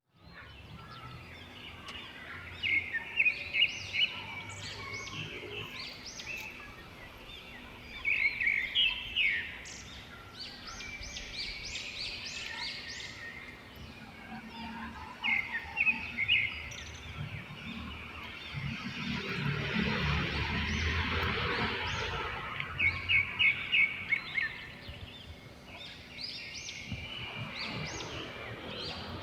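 Songbirds singing in short bouts of quick, repeated high chirps, five or so bouts with pauses between, over a steady outdoor background hiss. Around the middle, a broad rushing noise swells and fades.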